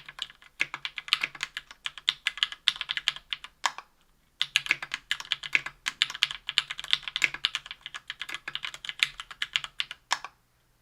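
Typing on a KBDfans Tofu 60% aluminium mechanical keyboard with lubed SP-Star White Meteor 57 g linear switches, an aluminium plate and GMK keycaps: a fast, continuous run of key clacks. It pauses briefly about four seconds in, resumes, and stops shortly before the end.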